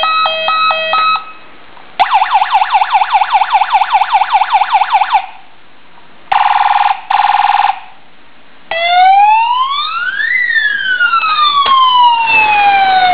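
A toy fire ladder truck's electronic siren sound effects, cycling through several patterns: a short stepped beeping tune, a fast yelping siren about six sweeps a second, two short buzzing blasts, then a slow wail that rises and falls with an echoing effect.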